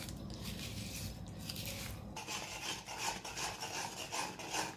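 Steel spatula stirring and scraping a thick ghee, jaggery and powder mixture around an iron kadai, settling into a regular scraping rhythm of about three strokes a second from about two seconds in.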